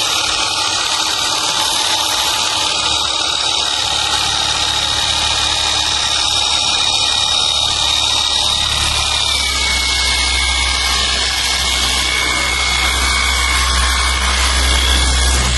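Cordless 20-volt brushless pressure washer running steadily, its motor and pump whining under the hiss of the water jet as it rinses a motorbike. About nine seconds in, the whine drops to a lower pitch and a deeper hum underneath grows stronger.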